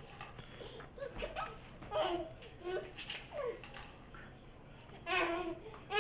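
A baby babbling in short separate sounds, breaking into a brief giggle about five seconds in.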